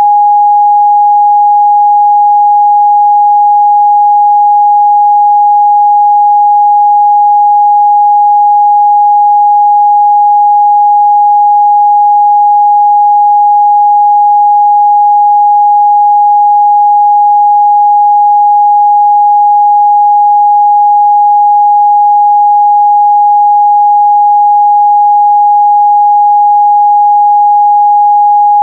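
A steady, unbroken 826 Hz sine-wave test tone, one pure pitch held at constant loudness.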